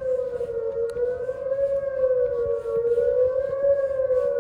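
Outdoor tornado warning sirens sounding a steady alert tone during a siren test, the pitch wavering slightly and slowly up and down.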